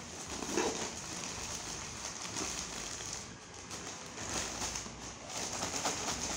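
Thin plastic courier mailer bag crinkling and rustling as it is gripped, lifted and shaken, in irregular flurries.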